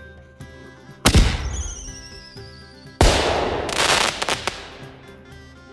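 Two explosion bangs over light background music: one about a second in and a longer one about three seconds in, each dying away over a second or so, with a falling whistle between them.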